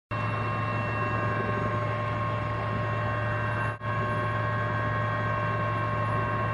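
Steady drone of an aircraft's engine heard from aboard, a low hum with several steady tones above it, dropping out for an instant a little under four seconds in.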